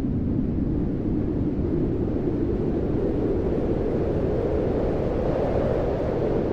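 Blizzard wind blowing steadily, a deep howling rush that swells slightly higher in pitch partway through.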